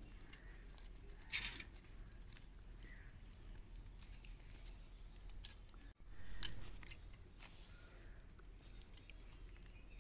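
Faint handling sounds as boiled jackfruit pieces are picked up and set down on newspaper: scattered small clicks, light clinks of bangles and soft paper rustles. Two brief louder rustles come about a second and a half in and again about six and a half seconds in.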